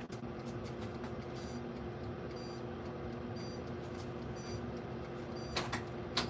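A steady low mechanical hum, with a faint high tick about once a second and two sharp clicks near the end.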